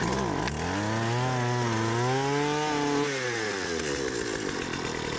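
Poulan Pro string trimmer's two-stroke engine running after being reassembled, on a correct gas-oil mix: it has come back to life. It is revving. The pitch dips and then climbs in the first second, holds high, and eases down a little after about three seconds.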